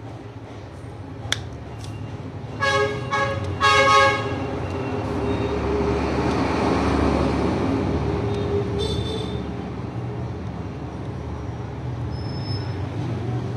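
Street traffic with vehicle horns: two short honks close together, then a vehicle passing with a rising and falling rumble, and another short, higher-pitched honk.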